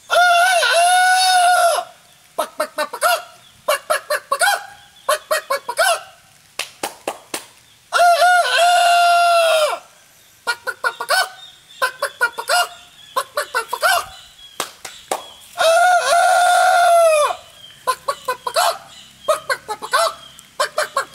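A man imitating chickens with his voice: three long rooster crows, each followed by a run of short hen clucks.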